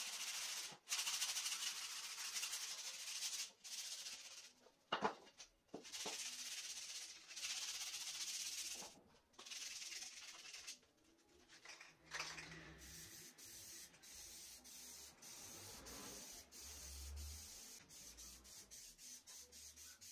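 Hand-sanding wood with a sheet of sandpaper: bursts of rasping strokes with short breaks between them, turning fainter and choppier about twelve seconds in.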